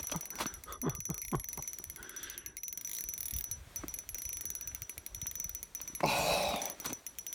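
Spinning reel drag clicking rapidly as a large lake trout pulls line off the spool. A brief rush of noise comes about six seconds in.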